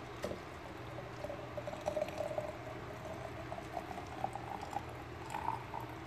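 Hot Arabic coffee (ghahwa) poured in a steady stream from a metal coffee pot through a fine mesh strainer into the vessel below. The pouring note rises in pitch as the vessel fills.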